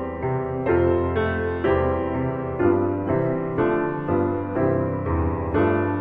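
Background music: piano playing chords, a new chord struck about once a second.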